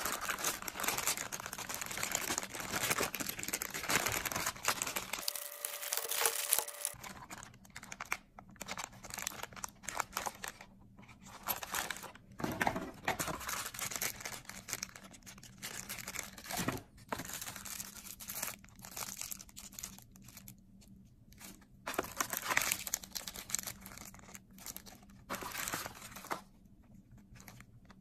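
Clear plastic packaging bags crinkling and rustling as bagged accessories, including a coiled charging cable, are handled and lifted out of a box tray. The rustling comes in irregular bursts, busiest in the first several seconds and sparser later.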